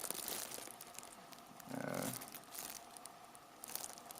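Faint rustling and small irregular clicks of hands working a camera's manual focus ring.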